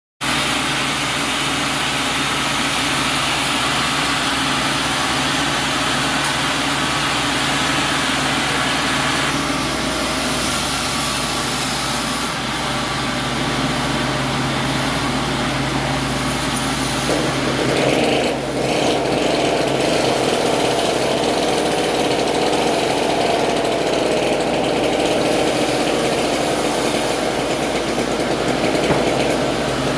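Sawmill machinery running steadily, an engine-driven saw at work on timber. Its sound changes a little more than halfway through.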